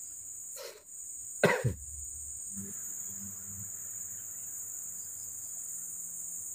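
Steady, high-pitched drone of insects, with a person coughing once, loudly and briefly, about a second and a half in.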